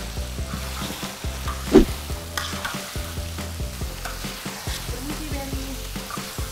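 Long metal spatulas stirring and scraping fried shallots and candlenut around a large steel wok, with the food sizzling in the oil. One louder knock comes about two seconds in.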